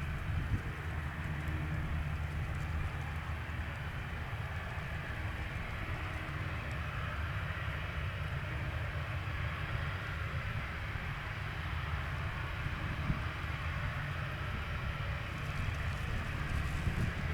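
Boeing 737-800 airliner's CFM56-7B jet engines running at taxi power as it backtracks along the runway: a steady low rumble with an even hiss above it.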